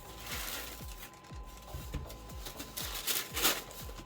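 Rustling and handling noise as a sneaker is lifted out of its box, in two bouts, over background music with a steady beat.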